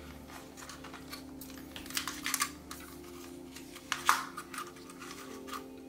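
Light plastic clicks and taps from handling a DJI Mini 4 Pro drone as its folding arms and propellers are swung open, in two short clusters about two seconds and four seconds in.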